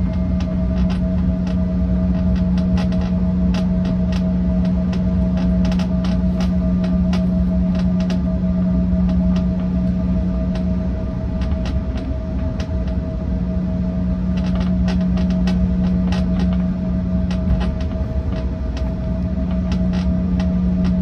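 Jet airliner cabin while taxiing: a steady engine hum with a strong low drone and a fainter higher tone over a low rumble, and frequent small creaks and clicks from the cabin trim as the plane rolls.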